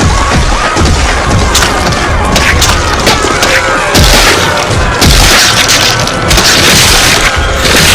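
A dense, loud mix of layered sound-effect booms, crashes and impacts, one hit after another without a break, with heavier blasts about four and five seconds in.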